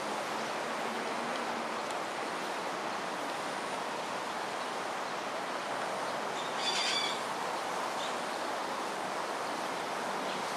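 Steady outdoor background hiss, with one short bird call about two-thirds of the way through.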